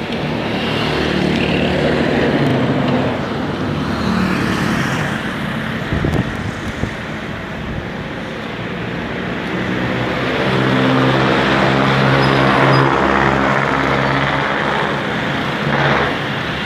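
Road traffic: motor vehicles passing along the street, engines humming and tyres hissing, with one engine passing close and loudest in the second half.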